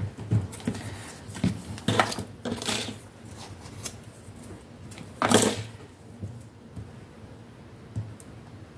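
Handling noises on a craft table: a plastic glue bottle and paper flower cut-outs moved about on a cutting mat. A scatter of light taps and rustles, with one louder, longer rustle about five seconds in.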